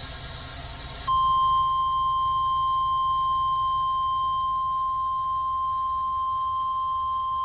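NOAA Weather Radio 1050 Hz warning alarm tone, cutting in about a second in after a moment of radio hiss and then holding one steady pitch. It is the alarm tone of the weekly test that sets off weather alert receivers.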